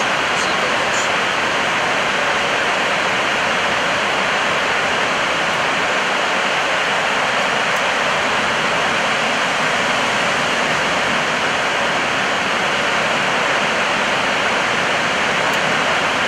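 Steady rushing noise in an Airbus A320 flight deck in flight: the airflow and air-conditioning roar that fills the cockpit, even and unbroken.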